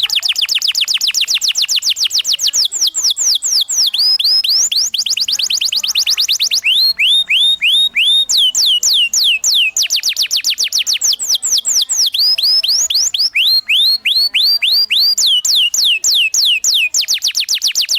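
Domestic canary singing a rolling song: a rapid series of downward-sweeping whistled notes, in phrases that shift pitch and pace every second or two.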